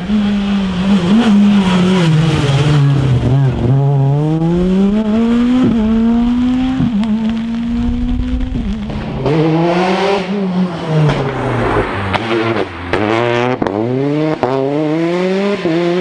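Rally car engine at full stage pace. Its note drops and climbs repeatedly through gear changes, with short cracks at several of the shifts. During the first few seconds there is tyre hiss from the wet road.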